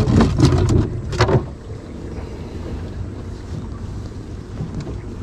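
Steady low rumble of a small river boat, with wind buffeting the microphone. A louder patch of knocks and rustling comes in the first second and a half.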